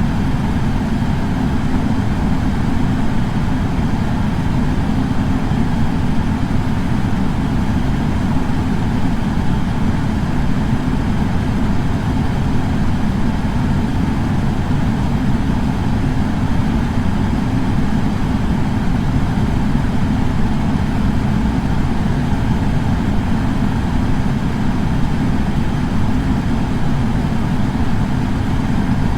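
Air purifier fan running steadily: an even, unbroken rushing noise weighted toward the low end.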